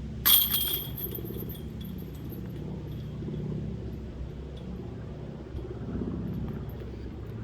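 Disc golf basket chains struck and jingling: a sharp metallic clash about a third of a second in, ringing off over about a second with a few light clinks after, over a steady low rumble.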